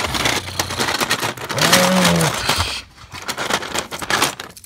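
Plastic Lego pieces and toy cars clattering and scraping on a Lego baseplate as they are handled and moved, with many short clicks. A short hummed voice sound comes about two seconds in.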